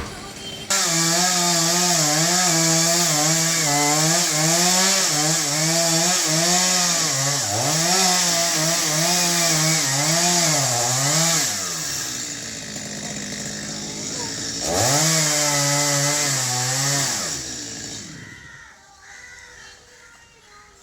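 Chainsaw running under load as it cuts into a coconut palm trunk, its engine pitch repeatedly dipping and rising. About halfway through it drops back, then revs up again for a couple of seconds before dying away near the end.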